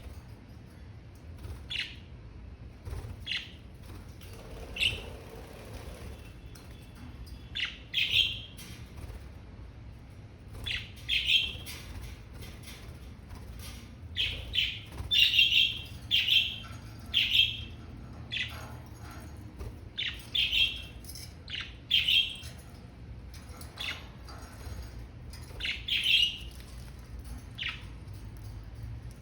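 Budgerigars chirping, with short high chirps and squawks coming in irregular clusters, busiest about halfway through.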